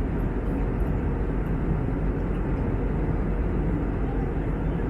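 Steady cabin noise of an Airbus A321neo in cruise, heard inside the cabin: an even, unbroken roar of airflow and engines, heaviest in the low range.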